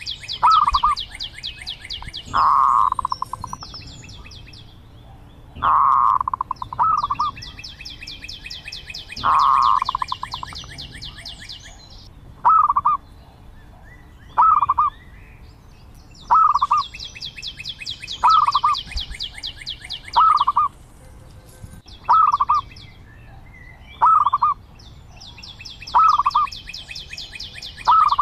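Zebra dove cooing: short, soft staccato coos repeated every second or two, with a run of longer, fuller coos in the first ten seconds. A rapid high trill of a few seconds comes in three times alongside the coos.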